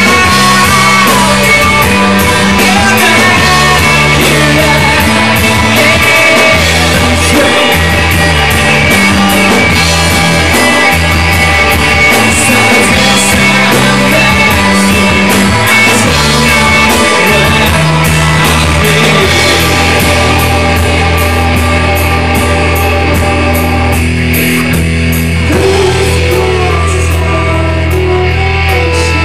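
Live rock band playing loudly: electric guitar, bass guitar and drum kit, with steady drum hits over held bass notes. The guitar thins out briefly about 24 seconds in while the bass keeps going.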